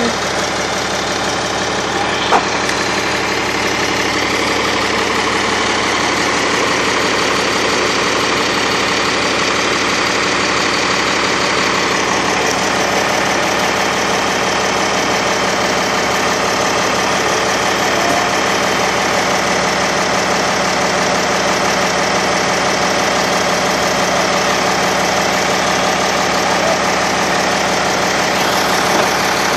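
An engine idling steadily, with one short click a couple of seconds in.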